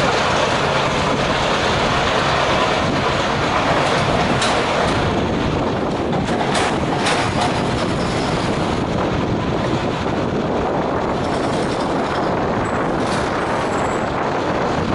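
Vintage Dennis fire engine running steadily as it drives slowly, a continuous mechanical clatter with a few short sharp clicks.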